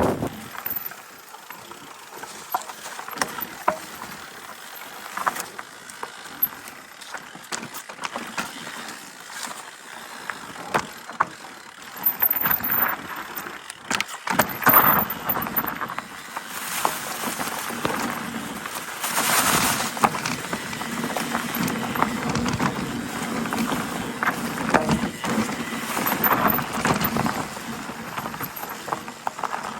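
Electric enduro mountain bike ridden over a forest trail: tyre noise on the dirt, with frequent clicks and rattles from the bike over rough ground, louder in rougher stretches.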